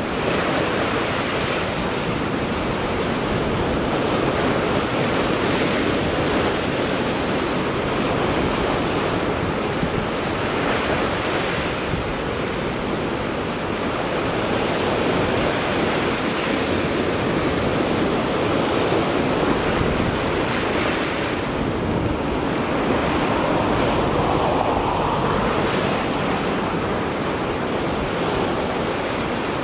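Small waves lapping and washing up a sandy beach: a steady surf hiss that swells a little every few seconds, with wind buffeting the microphone.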